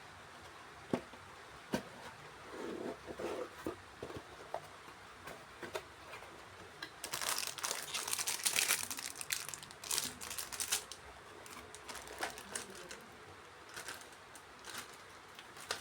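Packaging being handled during an unboxing: crinkling and rustling, with scattered sharp clicks and a busier stretch of crinkling about halfway through.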